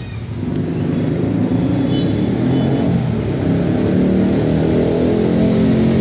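A motor vehicle engine running close by, swelling over the first second and then holding steady.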